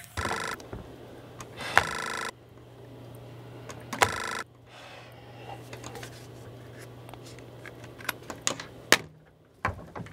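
Office desk telephone ringing in three short electronic rings over a steady low hum, followed by a handful of clicks and knocks as the handset is handled and set down on the desk.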